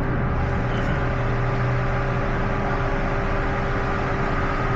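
Steady machine hum with a constant tone and even hiss underneath.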